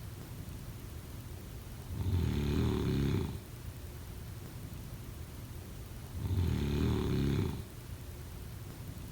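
A person snoring: two snores about four seconds apart, each a low buzzing sound lasting just over a second.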